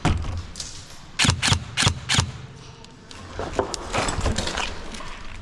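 Airsoft guns firing. There is one sharp shot at the start, then four quick shots about a third of a second apart, then a looser run of fainter shots a little after the third second.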